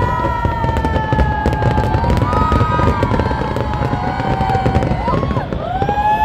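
Fireworks display in full barrage: dense crackling and booming bursts, with several long whistles gliding slowly up and down in pitch over the top.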